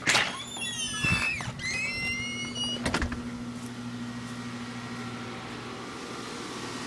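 Bryant Legacy series central air-conditioner outdoor unit starting up: a sudden start into a steady low hum, with several high whining tones that glide and then settle over the first three seconds. A sharp click comes about three seconds in, and the unit then runs on with an even hum.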